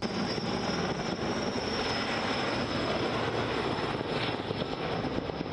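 Erickson S-64 Air-Crane firefighting helicopter flying overhead: a dense rotor chop with a steady high turbine whine over it.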